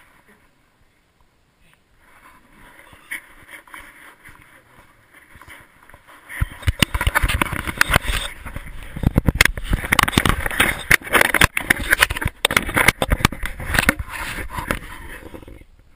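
Loud rubbing, scraping and knocking of a GoPro camera strapped to a dog's collar as the dog moves about, starting about six seconds in after a quiet start.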